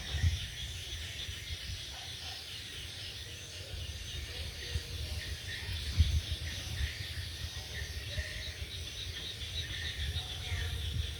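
Insects chirping steadily in a dense high chorus, over a low, uneven rumbling that swells briefly about six seconds in.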